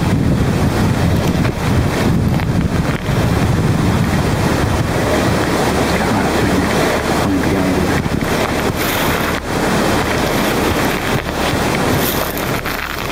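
Wind buffeting the microphone: a loud, steady rushing rumble, heaviest in the low end, with a few brief dips.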